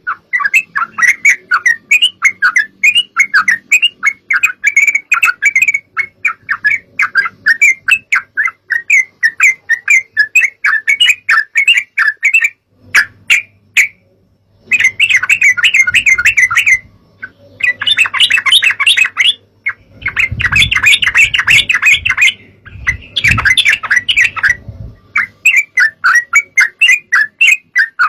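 Yellow-vented bulbuls (trucukan) singing: a dense run of rapid, bubbly chattering notes, broken by a few short pauses after the middle.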